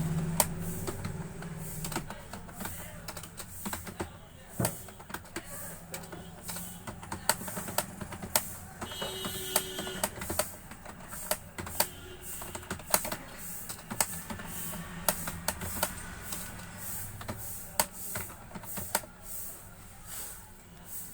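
Typing on a computer keyboard: quick, irregular keystroke clicks, several a second, during a typing speed test.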